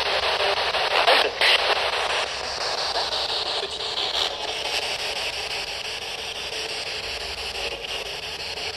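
Steady hiss of static, like an untuned radio, with a couple of brief louder crackles about a second in; the hiss eases off slightly toward the end.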